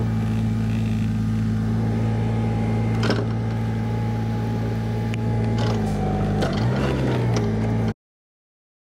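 Toyota 7FGCU18 forklift engine running steadily, with a single click about three seconds in and the engine note sagging and recovering briefly near the end. The sound cuts off abruptly about a second before the end.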